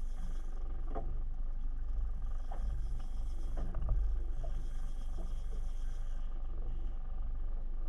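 Fishing reel being cranked in spells during jigging: a high whirring hiss that starts and stops several times, with a few light clicks. Under it runs a steady low rumble.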